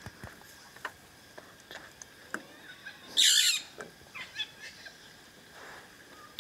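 Spotted hyena cubs nosing and mouthing a Land Rover's door, with small scattered clicks and taps against it. A loud breathy sniff comes about three seconds in, followed by a few fainter ones.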